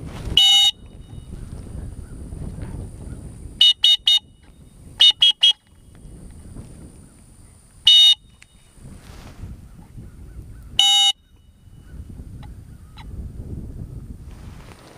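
Dog-training whistle blown in sharp, high blasts: a single blast, then two quick sets of three short toots, then two more single blasts, the handler's whistle signals to a retriever running a blind retrieve. A low rumble fills the gaps between the blasts.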